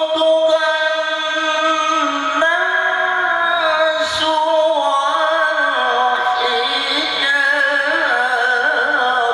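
A man's voice in melodic Quran recitation, holding a long, ornamented note without a break and moving up and down between sustained pitches a few times.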